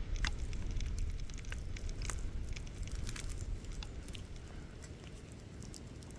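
Wood fire crackling, with irregular sharp pops over a low rumble, getting quieter toward the end.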